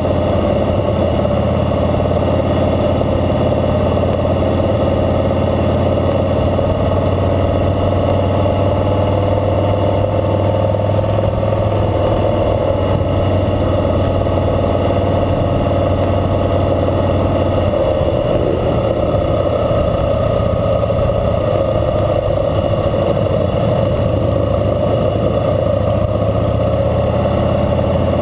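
Harley-Davidson Fatboy Lo's air-cooled V-twin engine running steadily under way, heard from a camera mounted on the bike.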